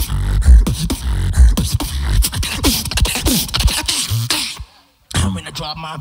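Solo beatboxing into a handheld microphone: heavy deep bass hits, then a run of falling vocal pitch sweeps. It cuts to a brief dead stop about five seconds in, then picks back up.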